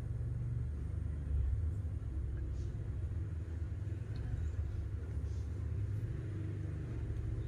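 A steady low rumble, with a few faint small clicks over it.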